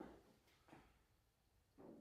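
Near silence: room tone, with three faint short knocks, one at the start, one under a second in and one near the end.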